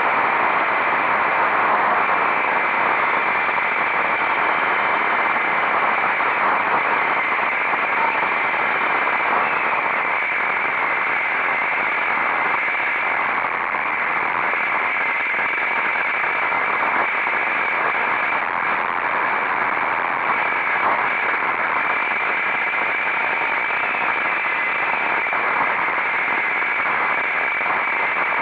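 Steady wind rush buffeting the microphone on a moving motorcycle, with a faint steady high whine in it; the engine itself is barely picked out.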